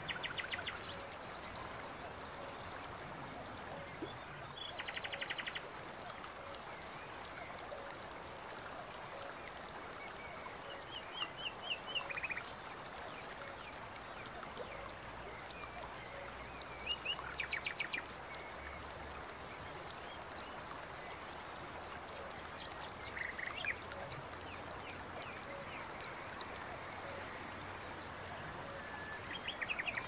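Forest ambience: a steady rush of running water, with birds giving short, rapid trilled calls about every six seconds.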